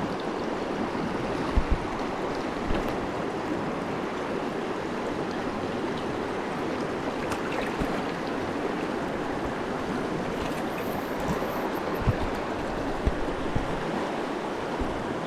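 Creek water rushing steadily, with a few soft low knocks now and then.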